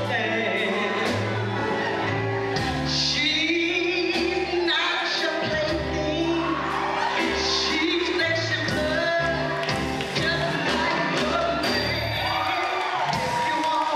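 Live band of electric bass, drum kit and keyboards playing a song while a woman sings lead into a handheld microphone, with other singers on the stage.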